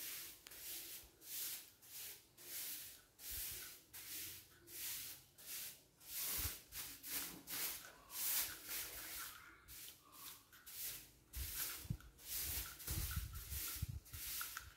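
Soft grass broom (walis tambo) sweeping a tiled floor: a regular run of swishing strokes, about three every two seconds, with a few low bumps near the end.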